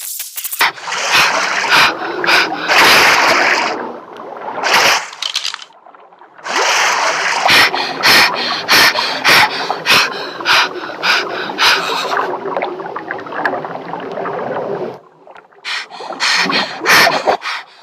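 Repeated scraping or rubbing strokes, about two to three a second, in several runs separated by short pauses.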